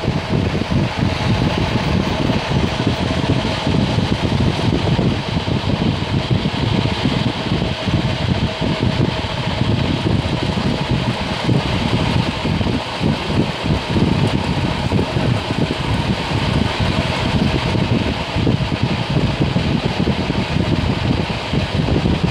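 Steady rumble of a passenger train in motion, heard from aboard a coach hauled by an Alco RSD-39 diesel-electric locomotive.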